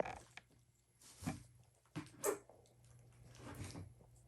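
Slime being squeezed and stretched in the hands, giving a few short, soft squishes.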